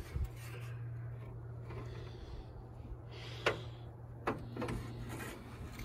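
Hands working a car's quarter-window glass and its metal window channel, with faint rubbing and two sharp clicks a little under a second apart past the middle, over a steady low hum.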